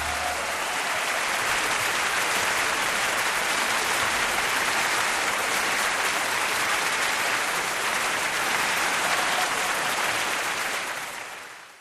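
Crowd applauding steadily, fading out near the end.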